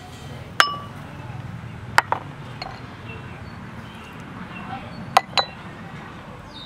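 Spoon clinking against a ceramic bowl as seasonings are tipped in: a ringing clink about half a second in, two more around two seconds, and a quick pair about five seconds in.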